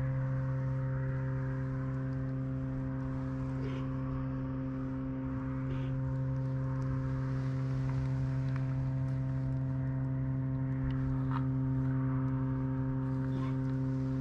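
A steady low hum with a pitch and overtones, unchanging throughout, with a few faint ticks and rustles over it.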